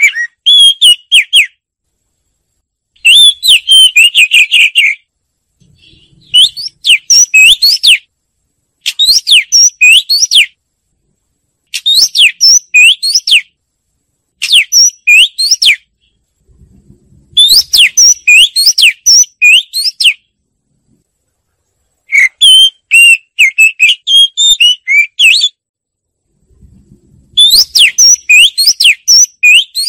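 Oriental magpie-robin singing: about nine loud phrases of quick whistled notes that rise and fall, each phrase one to two seconds long, separated by short pauses.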